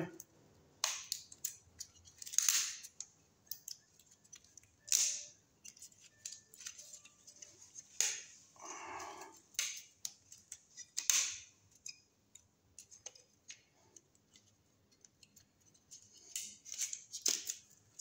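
Scattered sharp clicks, snaps and rustles of hands handling an outlet in a metal electrical box and pulling at its wires, with a few louder snaps and a busier patch of clicks near the end.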